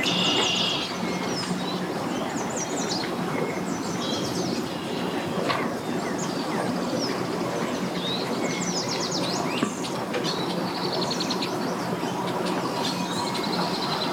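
Birds chirping repeatedly over a steady engine-like rumble with a constant low hum.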